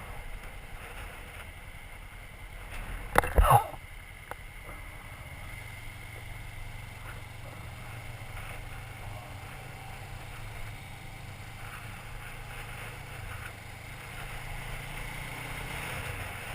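A person sneezing once, about three seconds in, a sharp double burst over a steady low rumble.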